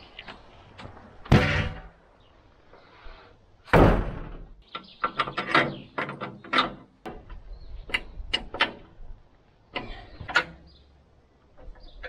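Two loud wooden knocks about one and four seconds in, then a run of lighter clicks and taps: timber and tools being handled while working on a sawmill's wooden rails.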